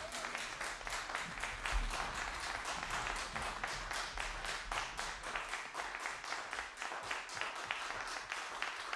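Audience applauding at the end of a brass band piece: dense, steady clapping from many hands.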